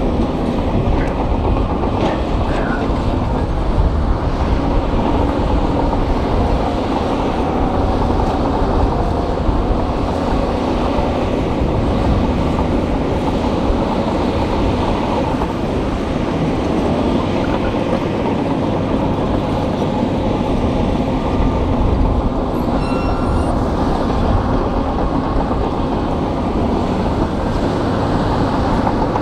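Crawler bulldozer's diesel engine running hard with its steel tracks clanking as it pushes rock and gravel, a continuous heavy mechanical din.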